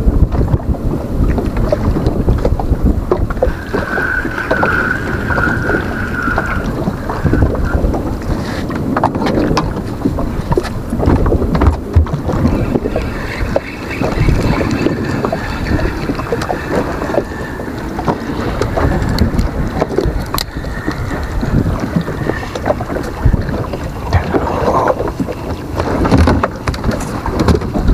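Wind buffeting the microphone in a low, uneven rumble, with scattered knocks and clicks from handling a spinning rod and reel. A brief high whine comes in about four seconds in and lasts a few seconds.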